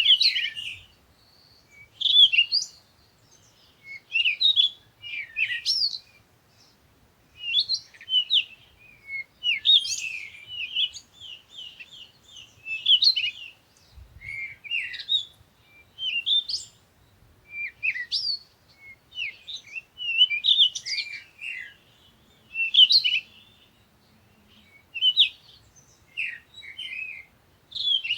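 Small songbirds chirping in repeated short phrases of quick high notes, one phrase every second or two with short gaps between.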